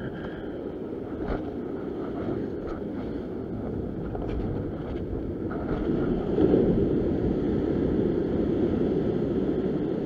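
Steady low rumble of wind buffeting the microphone and surf washing against the rock ledge, with a swell of louder wash about six seconds in and a few faint handling clicks.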